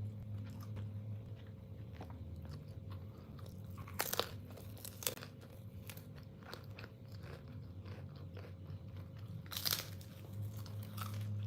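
A person biting and chewing chicken close to the microphone, with sharp crackles of the bites about four seconds in, about five seconds in and again near ten seconds in, over a steady low hum.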